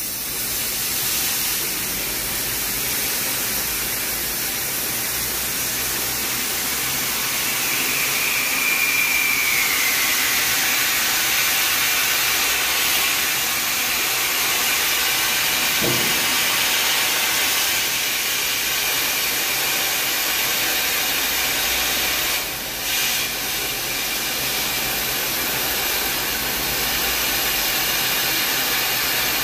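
Compressed air hissing steadily as it is blown through a car's engine cooling system, forcing flush water out of the coolant reservoir in a spray. The hiss breaks off briefly about three quarters of the way through, then resumes.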